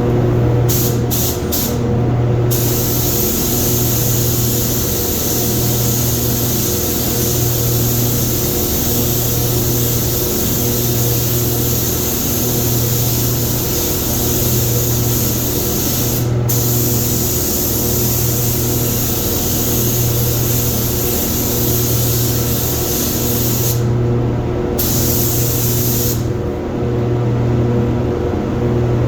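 Automotive paint spray gun hissing steadily as base coat is sprayed onto a car door, the trigger released briefly a few times, with a longer pause near the end. A steady low hum runs underneath.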